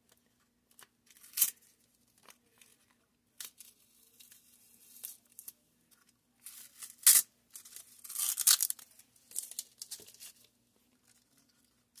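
Masking tape being peeled off a painted plastic scale model in short ripping pulls, with crinkling of the loose tape; a sharp rip comes about seven seconds in and the longest peel just after.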